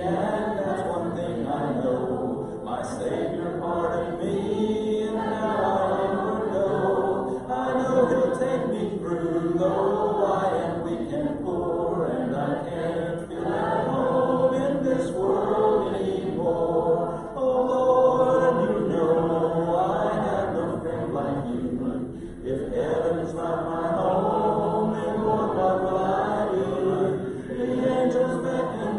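Congregation singing a hymn a cappella: many voices together, with no instruments, and brief pauses for breath between lines.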